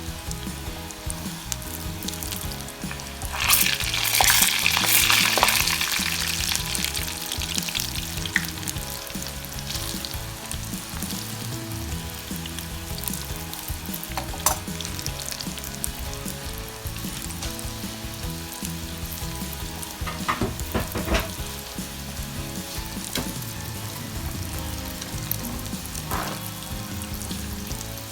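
Breaded okra deep-frying in hot oil: a steady sizzle that swells loudly for a couple of seconds about three seconds in, with a few sharp crackles later on.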